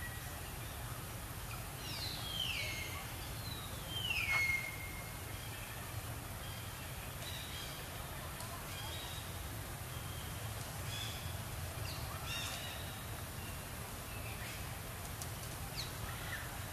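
High-pitched animal calls: two calls that slide down in pitch about two and four seconds in, the second the loudest, then a scatter of short chirps. A steady low rumble runs underneath.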